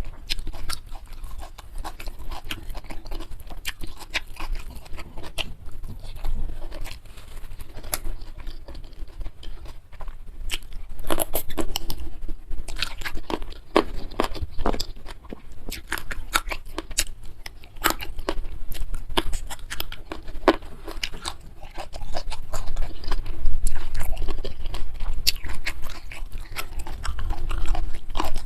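Close-miked chewing and crunching of food in the mouth: a steady run of sharp, irregular crisp clicks and smacks, with louder bouts of crunching about eleven seconds in and again past the twenty-second mark.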